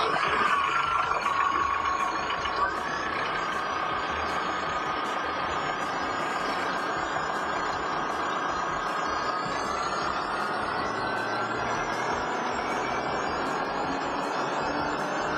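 REM VR12 grain vacuum running on its CAT Tier 4 diesel engine just after start-up: a steady, dense machine noise with a high whine that steps up in pitch about two and a half seconds in and climbs slowly again later on.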